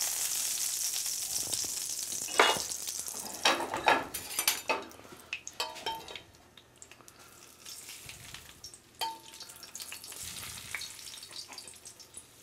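Hot butter sizzling in a frying pan, the sizzle fading after about two and a half seconds. Then come scattered clinks and knocks of the pan and utensils.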